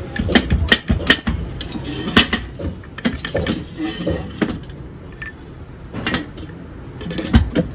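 Irregular metal-on-metal knocks and clinks of tools working the cylinder kit off a KTM RC engine whose piston has seized in the bore, with a quieter stretch a little after the middle.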